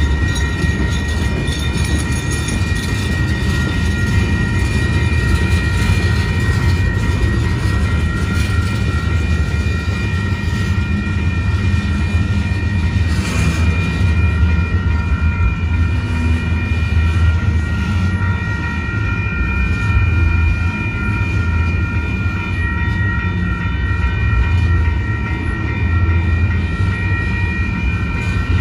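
Freight train cars rolling past: a steady, loud low rumble of steel wheels on rail, with a few steady high ringing tones above it and a brief sharper clatter about halfway through.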